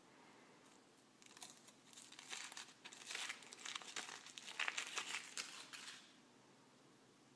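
Thin foil wrapper crinkling and tearing as it is peeled by hand off a chocolate surprise egg, in a dense run of irregular crackles. The crackling starts about a second in and stops abruptly near the end.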